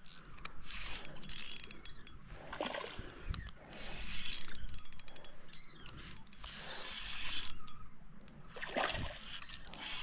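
Spinning reel being cranked against a hooked smallmouth bass on an ultralight rod, the gears whirring and the drag ticking in short runs as the fish pulls line.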